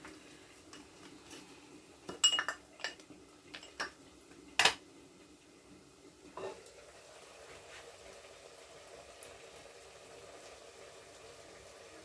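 A metal spoon stirring in a cooking pan, clinking against it several times in the first half, the loudest strike a little before the midpoint, over a faint steady frying sizzle of oil and onions.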